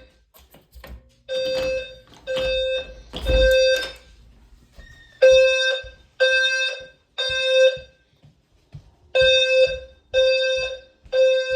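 Fire alarm horn strobe sounding the temporal-three evacuation pattern: three loud tones about a second apart, a pause, then again, three groups in all. A few low thumps come in between the first tones.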